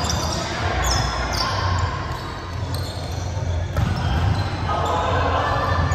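Ball game on an indoor court: a ball thumping and short high shoe squeaks, echoing in a large hall over the players' voices.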